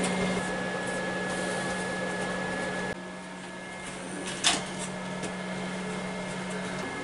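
Steady machine hum with a thin high whine over it; the whine drops out about three seconds in. A single sharp click about four and a half seconds in.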